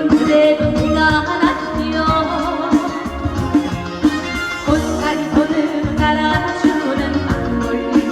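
Live trot song: a female vocal over a band accompaniment with a steady beat.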